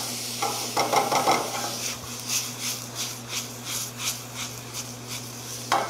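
Diced yellow onions and jalapeño softening in olive oil in a stainless steel skillet: a spatula stirs and scrapes the pan, then the pan is tossed over and over, about three flips a second, each with a brief swish of food.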